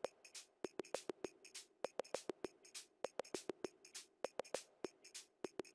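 Scattered sharp clicks at an uneven pace of a few a second, over a faint steady hum.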